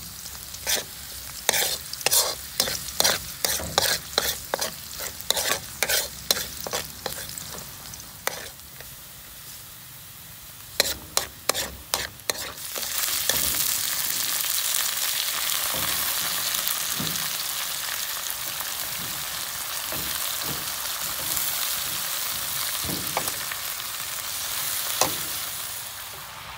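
Metal spoon clinking and scraping against a wok about twice a second as chopped garlic fries in oil. About 13 seconds in, a loud steady sizzle takes over as a pile of kale goes into the hot wok.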